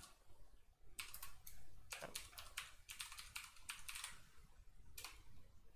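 Faint computer keyboard typing: a quick, irregular run of key clicks, with a last keystroke about five seconds in.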